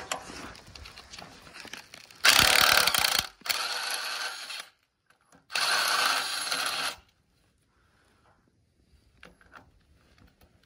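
Makita DTW1001 18 V brushless 3/4-inch impact wrench hammering on a tight bulldozer cutting-edge nut to break it loose. It runs in two bursts about two seconds into the sound: the first is loud, then eases to a lower level, and a second loud burst follows after a short pause.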